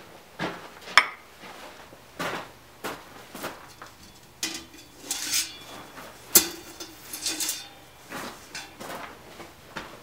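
Metallic clanks, knocks and scraping as a long steel sawmill blade section is handled and stood on end by an anvil. There are several separate knocks, the loudest a little past the middle, with ringing scrapes around it.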